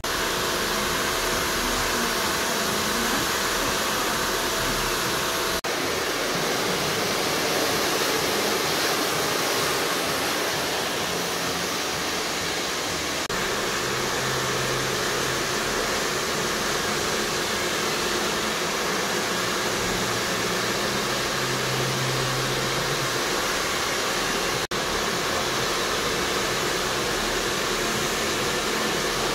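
Two handheld hair dryers running together, a loud, steady rush of air.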